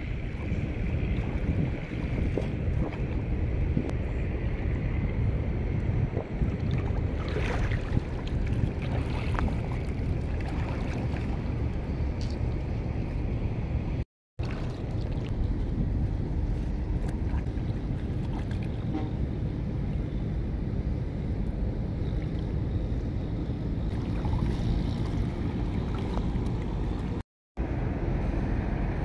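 Wind rumbling on the microphone over water sloshing and splashing as a man wades and works a fishing net by hand in shallow water. The sound is steady and cuts out for a moment twice.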